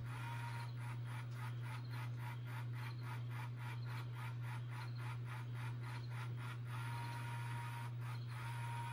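The M.A.R.K robot kit's small gear motors whirring while it is held off the table, pulsing in an even rhythm about four times a second that stops near seven seconds in, over a steady low hum.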